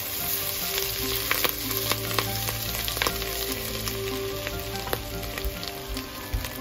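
Butter sizzling and foaming in a nonstick wok, with a plastic spatula stirring it and a few short taps and scrapes against the pan.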